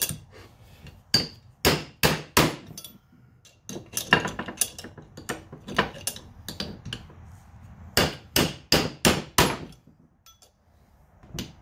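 A copper-headed hammer striking a steel seal-removal tool, driving a stubborn old crankshaft oil seal out of a Honda GX390's aluminium crankcase cover. Sharp metal taps come in irregular runs: four blows early on, a quicker cluster around the middle, five strong blows about two-thirds of the way through, then one more near the end.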